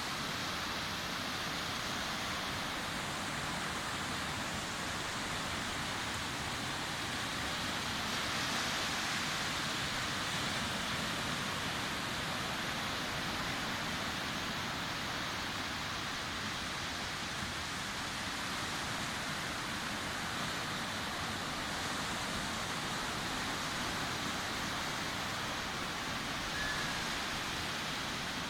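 Sea surf on a beach: a steady, continuous wash of breaking waves, swelling slightly about eight seconds in.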